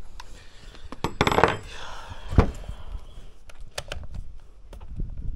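Clicks and light knocks of plastic and metal parts being handled as the air filter is taken off a Stihl 021 chainsaw. A short rustling burst comes about a second in, and a sharper knock a little after two seconds.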